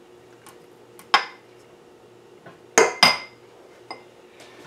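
Small dishes knocking against a stainless steel stand-mixer bowl as ingredients are tipped in: one clink about a second in, then a quick pair near the three-second mark, each with a brief metallic ring.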